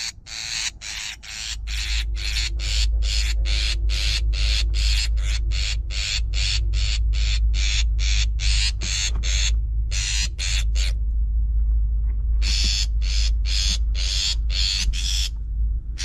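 Long-tailed shrike giving rows of harsh, rasping scold calls, about two or three a second, broken by short pauses: the alarm of a parent bird at its nest, which a greater coucal is raiding. A steady low rumble runs underneath.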